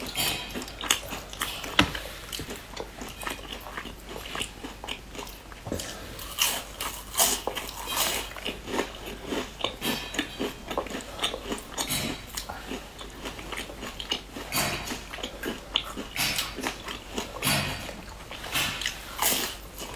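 Close-miked biting and chewing of crisp round biscuit sandwiches filled with purple rice: repeated crunching bites followed by chewing crackles.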